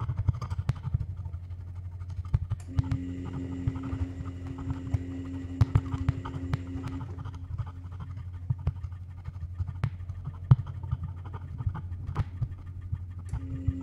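Improvised experimental music built from field recordings, percussion and electronics: a steady low hum under scattered clicks and scratches. A held mid-pitched tone comes in about three seconds in, fades out a few seconds later, and returns near the end.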